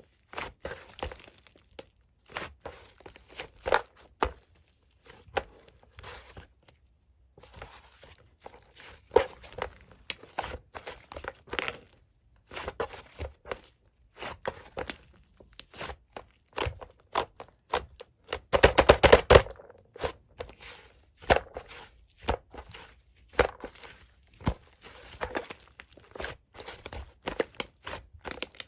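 Hands squishing, poking and stretching mint-chocolate slime: irregular sticky clicks and pops, with a dense run of crackling about two-thirds of the way through.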